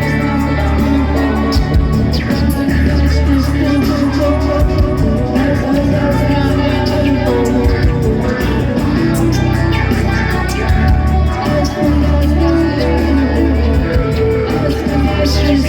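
Rock band playing with a loud, continuous band sound, heavy sustained low notes, and a singer's or shouting voice over the top.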